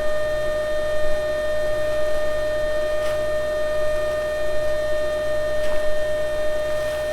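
Farm machinery running: a steady, high-pitched whine over a low rumble that pulses a little faster than once a second.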